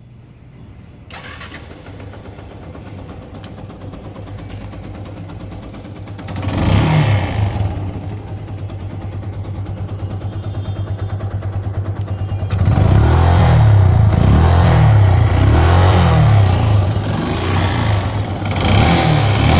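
Yamaha FZ motorcycle with a modified exhaust: the engine starts about a second in and runs, with a short rev about six seconds in. From about twelve seconds in it gets louder, with a series of quick throttle blips.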